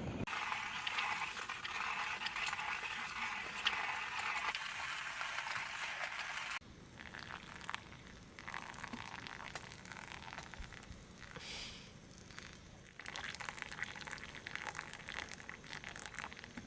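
Food sizzling and crackling in a pan, with scattered clinks of utensils. The sizzling is densest for the first few seconds and turns quieter and sparser after an abrupt change about six and a half seconds in.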